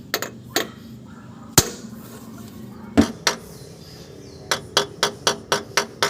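Hand hammer striking metal parts: a few separate blows, the loudest about a second and a half in, then a quick run of even taps at about four a second near the end.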